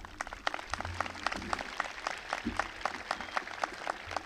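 Light applause from an audience, with individual hand claps standing out, irregular and several per second.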